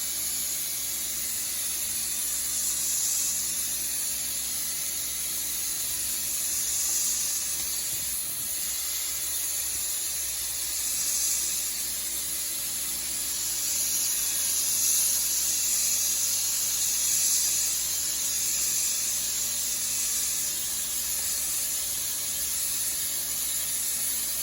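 Dustless (wet abrasive) blasting nozzle spraying steadily. It makes a high hiss that swells and eases every few seconds.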